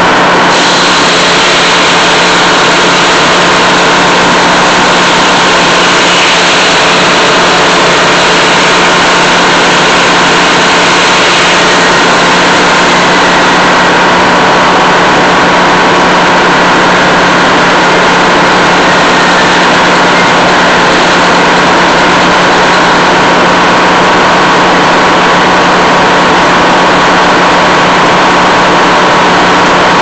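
Old Meadows circular sawmill running: the belt-driven drive and the large spinning blade make a loud, steady mechanical hum.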